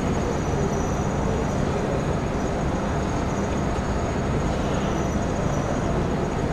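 Steady, even rumble and hiss of a large hall's background noise, with no distinct footsteps, strikes or voices standing out.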